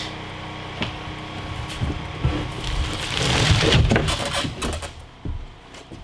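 Sheets of OSB board scraping and knocking against each other as one is pulled from a leaning stack and handled, with the loudest rough scrape about three to four seconds in.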